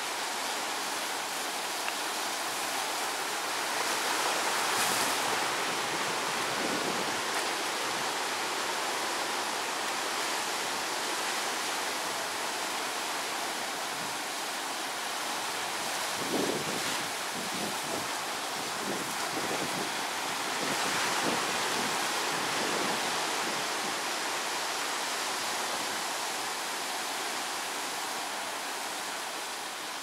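Sea surf breaking on a sandy beach among rocks: a steady wash of waves that swells louder twice, with a few low rumbles in the middle.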